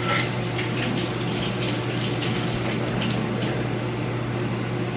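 Kitchen tap running steadily into a sink, a constant rushing with a steady low hum underneath and a few faint clinks.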